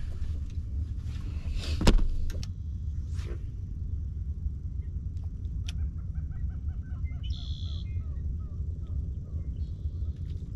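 A bird calls a quick run of short, repeated notes around the middle, over a steady low rumble, with a sharp click and a brief swish early on.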